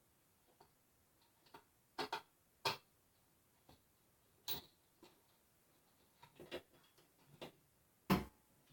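Scattered metallic clicks and knocks from a ceiling fan mounting bracket and its screws being handled and fastened to the ceiling fixture, irregular and a few seconds apart, the loudest near the end.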